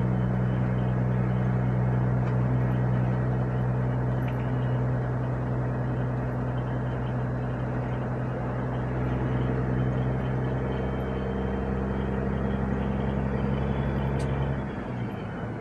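Caterpillar diesel engine of a Peterbilt 389 semi truck running steadily under way, a low even drone with road rumble. Near the end the note breaks off and the level dips briefly before it picks up again.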